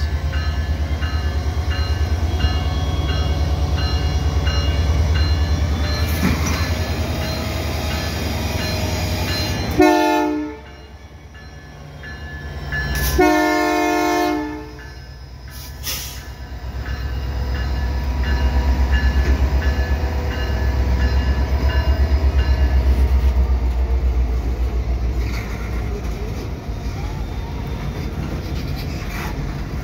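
Diesel locomotive pulling a train away, its engine giving a steady heavy rumble. The horn sounds twice, a short blast about ten seconds in and a longer one a few seconds later. A repeated ringing is heard in the first several seconds, and later the cars roll past with a clickety-clack.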